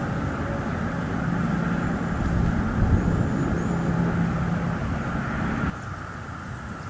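Steady low engine rumble with a faint hum, as from distant traffic or an aircraft heard through an outdoor nest-cam microphone. It drops off abruptly near the end.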